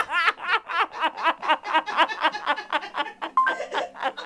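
A man laughing hard: a long run of quick, rhythmic "ha" bursts, about five or six a second, slowly fading.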